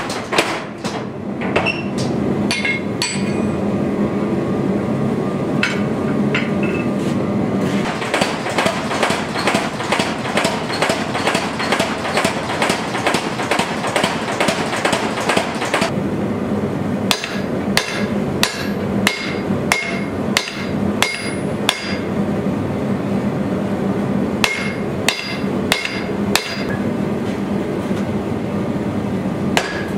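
Mechanical power hammer pounding red-hot leaf spring steel in rapid, even blows for about the first half. After that, a hand hammer strikes the hot steel on an anvil in separate ringing blows, about two a second, with a short pause before it resumes.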